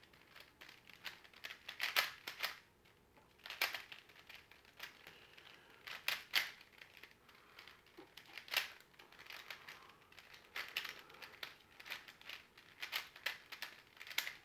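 Plastic clicks and clacks of a twisted Rubik's cube puzzle being turned by hand, coming in irregular short runs with brief pauses between them.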